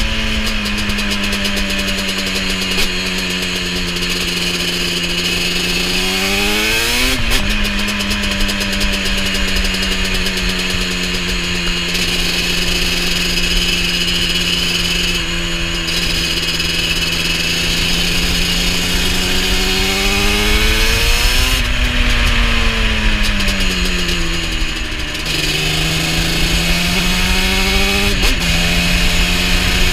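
Yamaha Banshee 350's parallel-twin two-stroke engine, fitted with Pro Circuit pipes, running under way with wind hiss. It holds a steady note while cruising. The note climbs and then drops sharply about seven seconds in, as at a gear change. Later it falls away and picks up again a few times near the end.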